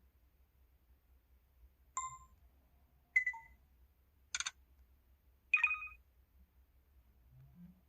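LG-SU420 mobile phone keypad button sounds: four short, different beeps played one after another, about one every second and a quarter. The third is a sharp double click.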